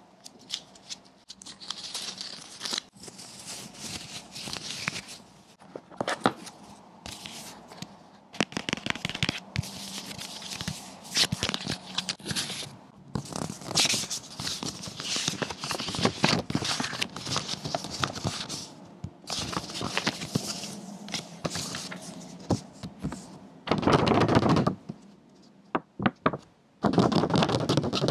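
Close-miked handling of a MacBook Air's paper packaging: the paper documentation sleeve, its card inserts and the sticker sheet rustling, crinkling and sliding against each other, with small taps and scrapes in quick succession.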